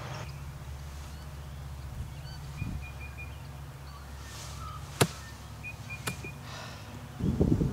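A golf iron swishes and strikes a ball with a single sharp click about five seconds in, and a fainter click follows about a second later. A bird chirps short repeated notes twice in the background, and a low rough noise starts near the end.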